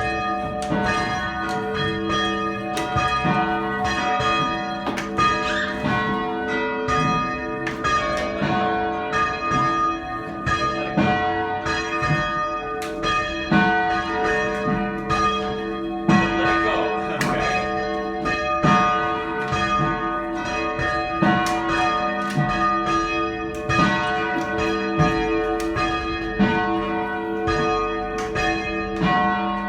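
Church bells rung in a steady, rapid sequence, strike after strike, their tones ringing on and overlapping.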